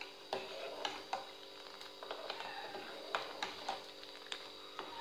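Steel spoon clinking and scraping against the side of an aluminium saucepan as boiling milk is stirred, in a dozen or more light, irregular clinks.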